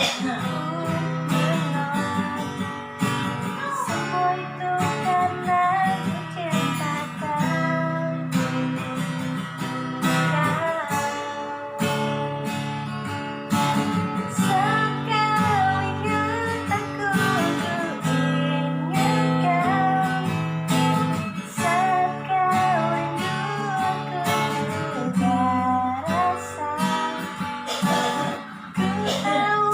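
A woman singing a melody over a strummed acoustic guitar.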